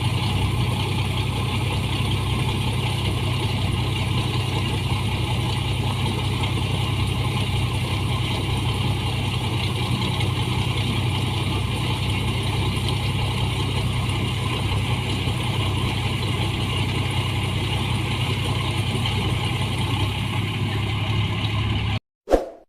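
New Holland 1545 rice combine harvester's engine running steadily, cutting off abruptly near the end, followed by a short chime.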